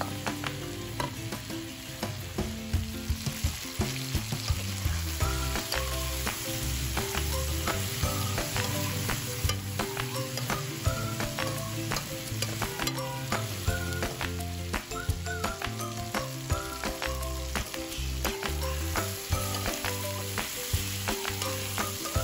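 Food sizzling in a hot pan, with frequent short clicks and scrapes of stirring.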